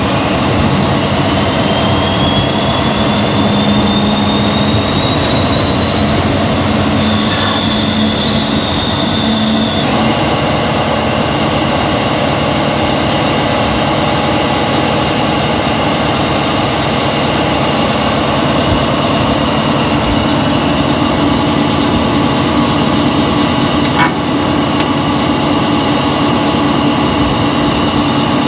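Class 40 diesel-electric locomotive's English Electric 16-cylinder engine running under power, heard from inside the cab. A high turbocharger whistle rises in pitch over the first several seconds, holds, and drops away about ten seconds in; a single short click comes near the end.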